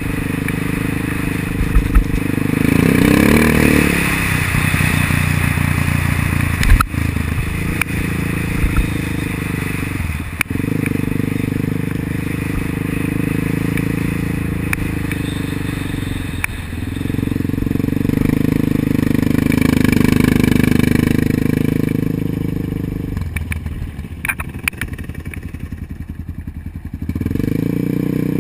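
ATV engine running, its pitch rising and falling again and again as it revs up and eases off. A few sharp knocks cut through it, the loudest about a quarter of the way in.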